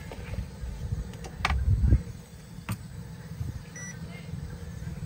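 Clear plastic coffee canister being handled and its lid taken off, with a few sharp plastic clicks and a heavier knock about two seconds in, over a steady low rumble. Two short electronic beeps sound near the end.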